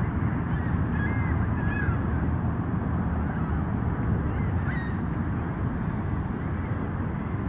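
Several short goose honks over a steady low rumble.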